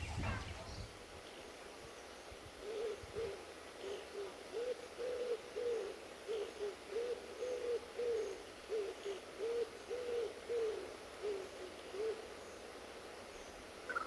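A pigeon cooing: a run of low, soft coos in repeated phrases of longer and shorter notes, from about three to twelve seconds in.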